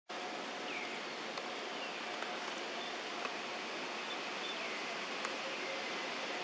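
Steady outdoor forest ambience, an even hiss, with a faint high call that slides down in pitch twice and a few light clicks.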